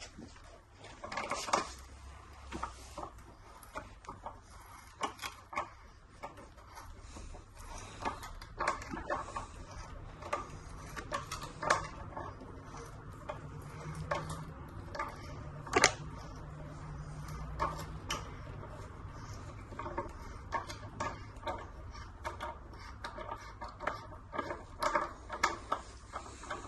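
Hand tap turned with a T-handle tap wrench, cutting threads into a drilled hole in metal: a string of small, irregular metallic clicks and ticks, with one sharper click about sixteen seconds in.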